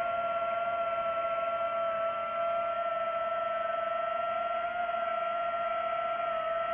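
DJI FPV drone's motors and propellers whining steadily at a high pitch, the pitch stepping up slightly about two seconds in.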